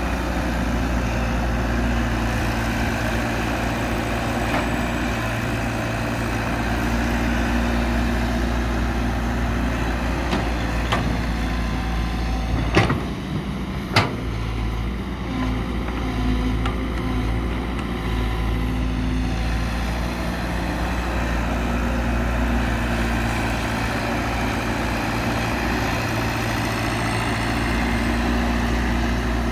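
Caterpillar 312 hydraulic excavator's diesel engine running steadily as it digs and loads earth. About halfway through there are two sharp knocks a second apart.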